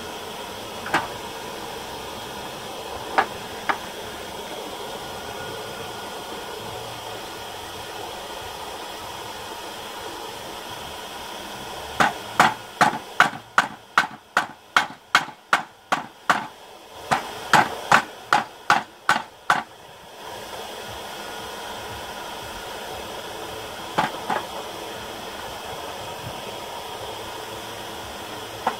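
Forging hammer striking steel on an anvil: a few single knocks, then two quick runs of ringing blows, about three a second, in the middle, over a steady background whir.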